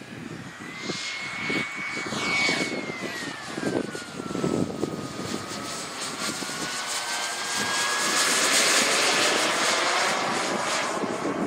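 Turbine engine of a Tornado RC model jet whining in flight. The whine falls and then climbs again in pitch, over a rushing hiss that grows loudest about eight to nine seconds in as the jet passes overhead.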